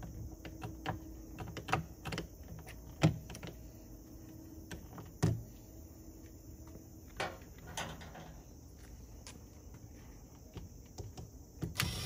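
Irregular clicks and knocks of an RV entry-door latch mechanism being handled and worked apart by hand, the loudest knocks about three and five seconds in.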